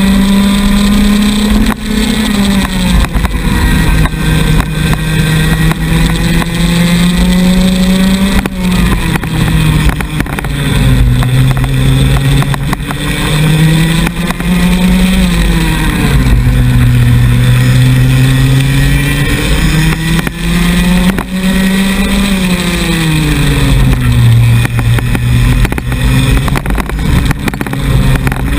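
Two-stroke racing kart engine heard from onboard at full race pace. Its pitch drops sharply about four times as the kart slows, then climbs steadily again as it accelerates.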